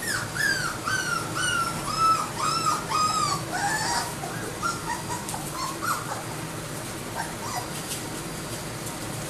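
Young Labrador puppy whimpering: a quick run of short, high whines, each falling in pitch, about three a second, then fainter, lower whines trailing off over the next few seconds.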